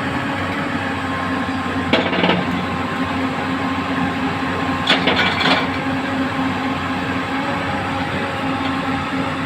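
A backhoe loader's engine idling steadily, with a metallic clank about two seconds in and a short run of clanks around five seconds in.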